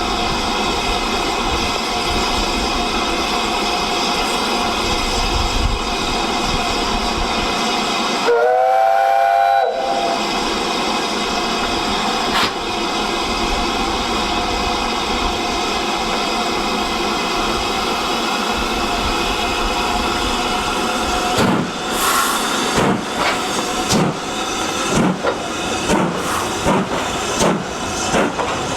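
Heritage steam locomotive standing with a steady hiss of steam, sounding its whistle once for about a second and a half about 8 seconds in, then starting away: sharp exhaust beats begin near the end and quicken to about two a second.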